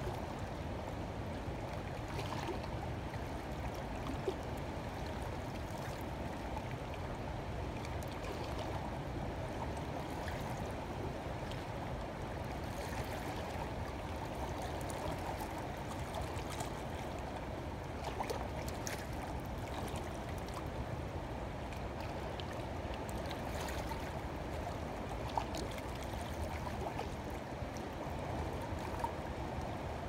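Steady rushing of flowing river water, with a few faint clicks.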